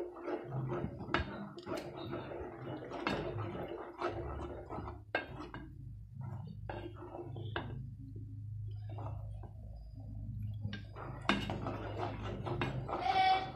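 Wooden spoon stirring creamy leafy greens in a metal cooking pot, with a scatter of knocks and scrapes as it hits the pot's sides. A steady low hum runs underneath.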